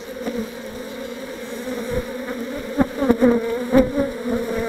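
A honey bee colony buzzing: a steady, wavering hum from the many bees on the open brood frame, with a few brief knocks in the second half.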